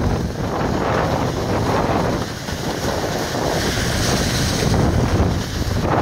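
Strong gusting wind buffeting the microphone, heavy at the low end.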